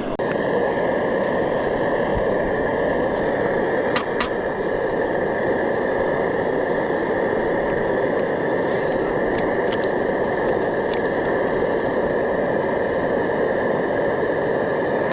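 Portable gas camp stove burner running with a steady hiss and a faint whistle, with a few light clicks along the way.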